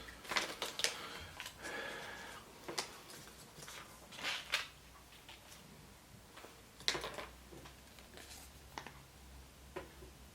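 Small plastic pieces and wrapping being handled by hand: scattered sharp clicks and brief crinkles, a few louder snaps.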